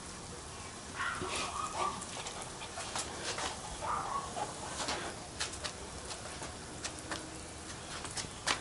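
Yellow Labrador retriever puppy whining briefly, once about a second in and again about four seconds in, among scattered short sharp ticks.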